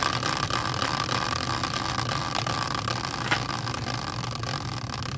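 Metal caster wheel used as a team-picker wheel, spinning freely on its bearing after a hand spin: a steady whir with a fast rattling tick, slowly fading as the wheel loses speed.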